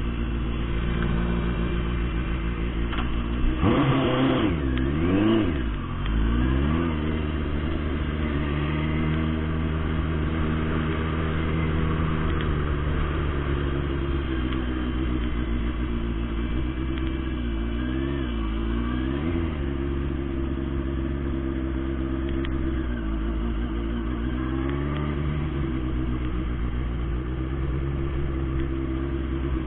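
Turbocharged 2006 Suzuki Hayabusa's inline-four engine running under way, heard from a helmet camera. The revs rise and fall quickly about four to six seconds in, and briefly again about eighteen and twenty-four seconds in.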